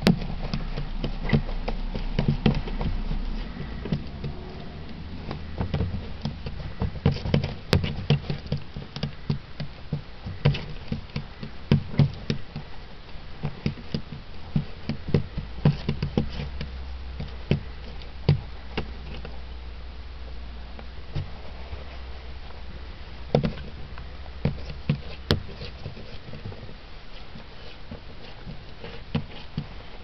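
A cat's paws tapping and patting against a car windshield, batting at a toy bird held against the other side of the glass, heard from inside the car. It is a quick, irregular run of soft taps and knocks that thins out after about twenty seconds, with a couple of sharper knocks later.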